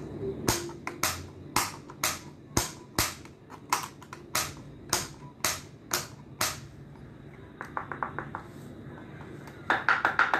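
A wooden stick tapping a homemade percussion board of metal jam-jar lids, bottle caps and coins fixed to a wooden crate base, about two sharp strikes a second. Then comes a quick run of light ticks and, near the end, a burst of rattling as the lids are lifted and made to jingle.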